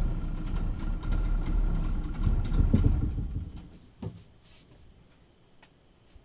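Boat engine running steadily, then dying away about three seconds in, leaving quiet with a few faint knocks.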